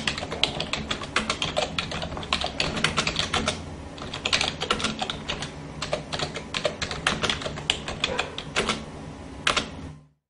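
Rapid, irregular clicking of keys being typed, a typing sound effect running under a low steady hum, cutting off shortly before the end.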